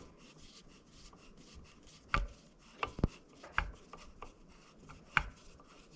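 A handful of sharp, irregular clicks and knocks, about six in all, from hand tools and metal parts being handled on a brake master cylinder as its reservoir set screw is driven down snug.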